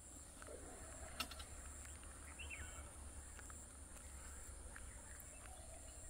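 Faint rural outdoor ambience: a steady high-pitched insect drone with a low rumble beneath. A bird gives one short falling chirp about two and a half seconds in, and a single sharp click comes a little after one second.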